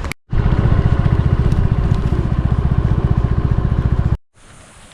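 Scooter engine running with a fast, even putter close to the microphone, stopping abruptly about four seconds in.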